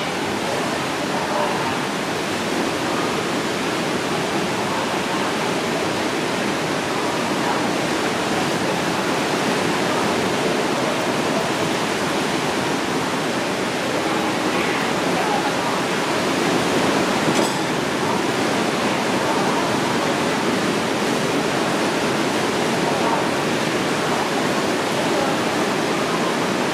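Steady rushing background noise with faint, indistinct voices in it.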